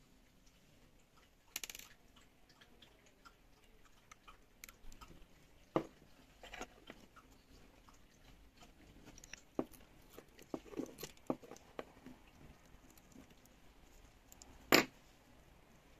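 Scattered clicks, taps and a brief scrape from the plastic casing and parts of a small round Bluetooth speaker being taken apart by hand, as its cover comes off and the circuit board and battery are lifted out. The sharpest click comes near the end.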